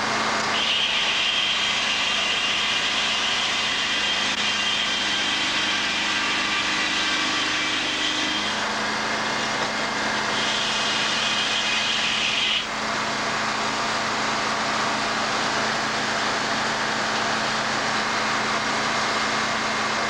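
Circular sawmill running, its large head saw sawing an oak cant: a steady machine drone, with a higher whine added from about half a second in until about eight seconds, and again for a couple of seconds around ten to twelve seconds, as the blade cuts.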